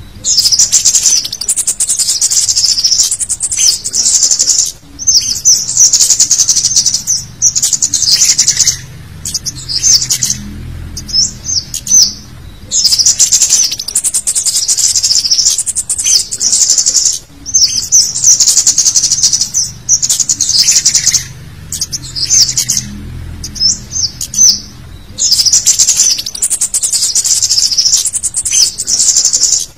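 Scarlet-headed flowerpecker (cit kemade) calls: loud, sharp, very high-pitched chittering in repeated bursts of one to two seconds with short gaps. This is a male calling for a female, used as a lure to draw wild birds in.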